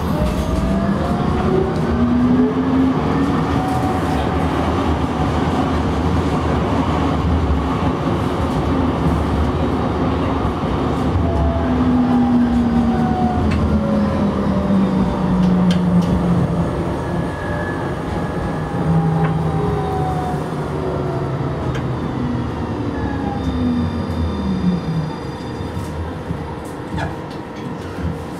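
Tram running on street track, heard from the driver's cab: a steady rolling rumble with a traction-motor whine that rises and falls in pitch several times as the tram speeds up and slows. The sound gets quieter over the last ten seconds.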